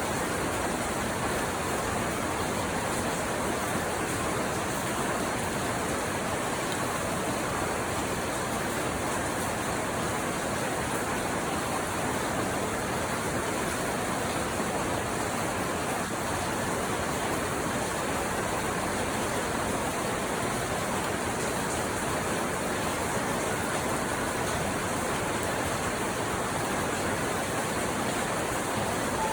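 Steady rain, an even continuous hiss that does not change.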